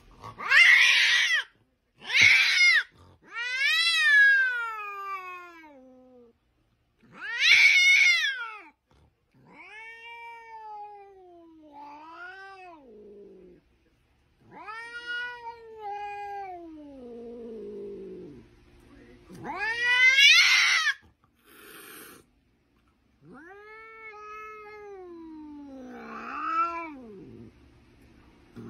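Domestic tabby cat yowling angrily over and over: about ten calls, some short, harsh and loud, others long and drawn out, sliding down in pitch.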